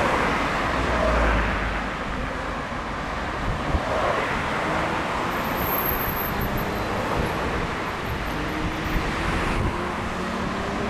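Steady road traffic noise from cars driving along a city street, with an engine's note rising near the end as a vehicle speeds up.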